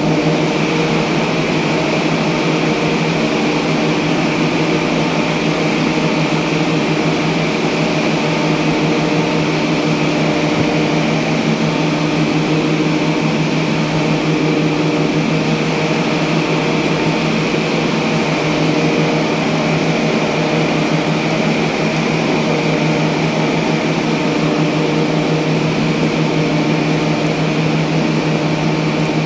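A steady, unchanging machine drone with a low hum and a higher hiss, such as a fan or motor running.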